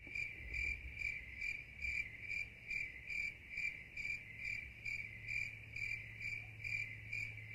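Crickets chirping in an even rhythm of about two chirps a second, edited in as an 'awkward silence' sound effect. It starts abruptly with the cut and stops just as abruptly.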